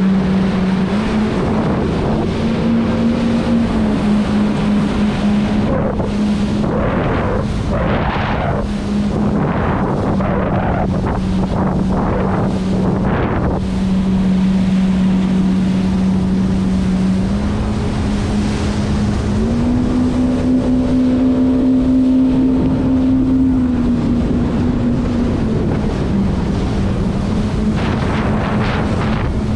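Jet ski engine running at speed, a steady drone that steps up and down in pitch a few times as the throttle changes, over the rush of spray along the hull and wind on the microphone.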